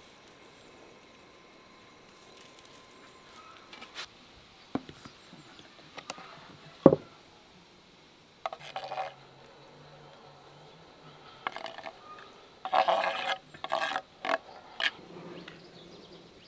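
Food-prep handling sounds: scattered clicks and knocks of utensils against a metal tray and a steel bowl, with one sharp knock about seven seconds in. In the second half come several short scraping rustles as chopped green onions are scraped off a wooden cutting board into a steel bowl.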